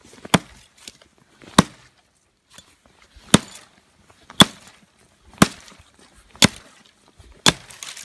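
Hatchet chopping into a tree trunk: seven sharp blows of the blade biting into wood, roughly a second apart, with a longer pause after the second.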